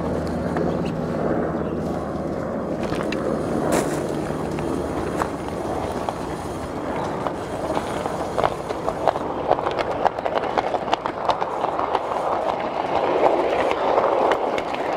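Wheels of a hand-pushed truck rolling along 7.5-inch gauge track, freshly re-aligned, with a run of sharp clicks that grows denser and louder in the second half.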